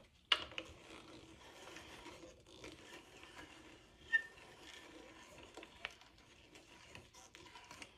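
Hand brace and bit boring into a wooden board, a continuous scraping cut as the bit pulls up shavings, with small ticks from the turning brace. A sharp click comes right at the start and a brief squeak about four seconds in.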